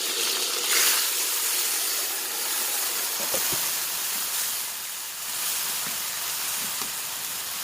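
Chicken adobo simmering and sizzling in its soy sauce in the pan: a steady hiss, briefly louder about a second in, with a few faint knocks later.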